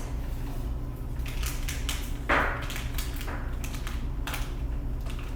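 Cardboard box and packaging for an Echo Dot being opened and handled: scattered clicks and scrapes, with a louder rustle about two seconds in.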